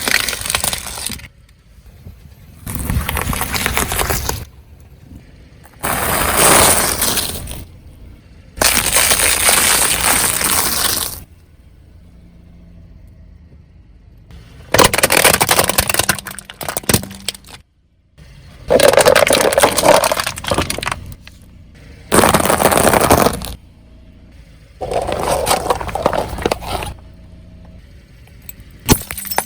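A car's tyres crushing objects, one after another: about nine separate crunching, cracking and breaking bursts, each lasting a second or two, with short quieter gaps between them.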